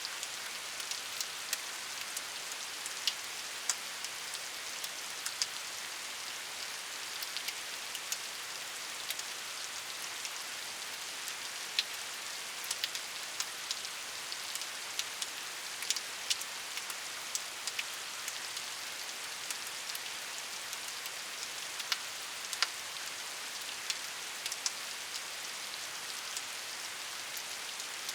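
Steady rain falling, a continuous hiss with many individual drops ticking sharply on a hard surface.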